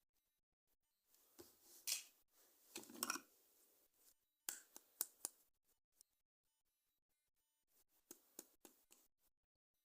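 Plastic toys and packaging being handled: scattered soft clicks and rustles in short clusters, with a few sharper snaps.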